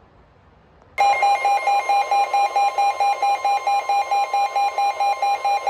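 NOAA Weather Radio's 1050 Hz warning alarm tone comes on suddenly about a second in, signalling a new warning broadcast. A weather radio receiver's own alarm beeps over it, about four shrill beeps a second.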